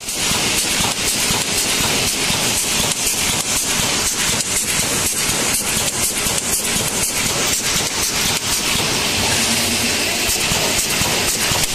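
DP-AW-1600EE automatic wire mesh welding machine running in production, its electrodes spot-welding cross wires onto the line wires. The sound is a steady, dense mechanical clatter of rapid clicks over a constant hiss.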